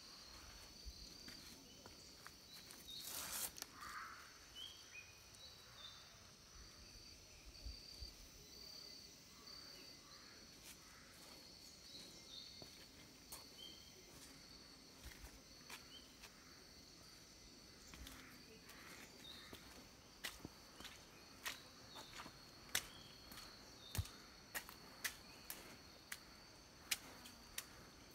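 Faint tropical forest ambience: a steady high-pitched insect drone with short repeated chirps. From about twenty seconds in come footsteps on the trail, as sharp irregular clicks and crunches.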